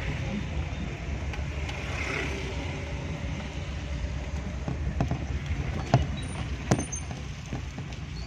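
Steady low rumble of a vehicle driving on a wet road, heard from inside the vehicle, with a few sharp knocks or rattles about five to seven seconds in.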